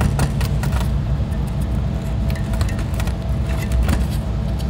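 Metal clicking and scraping as the old isolastic ring, already cut through, is wrenched and worked out of its steel tube on a Norton Commando frame. A steady low hum runs underneath.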